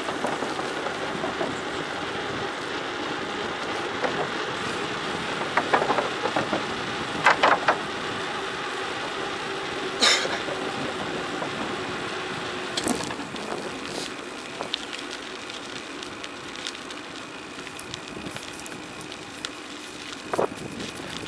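Tyres rolling down a gravel forest road with constant crunching noise and rattles, and several sharp knocks about six to eight seconds and ten seconds in. It grows quieter after about thirteen seconds, as if slowing down.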